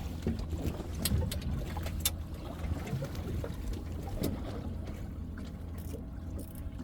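Steady low rumble with a faint hum, broken by a few light clicks and knocks.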